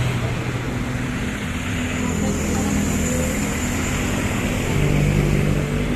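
Road traffic: steady engine hum from passing and idling vehicles, with the pitch shifting every second or two.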